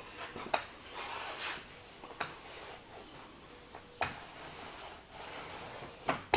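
Small paint roller rolling contact cement onto a plywood countertop: soft swishing strokes, with a few sharp clicks between them.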